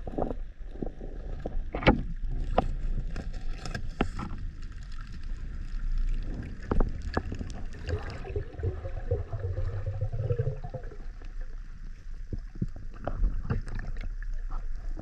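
Sea water sloshing around the microphone, with scattered sharp knocks and clicks over a low rumble.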